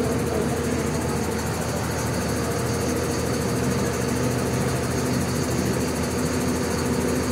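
A bus's diesel engine idling steadily.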